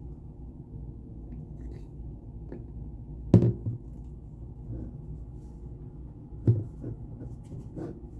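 Two soft knocks, about three and six seconds in, with a few fainter taps between, over a low steady hum.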